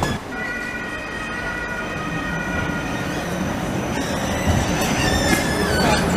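A Siemens ULF low-floor tram rolling past close by, giving a steady high-pitched whine of several tones. In the second half, higher squealing tones glide and bend over a growing rumble as the carriages go by.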